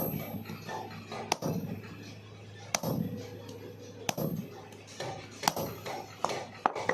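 Sharp metal-on-metal strikes, five of them about a second and a half apart, each with a brief high ring, as in cutlery metalwork. Voices chatter in the background.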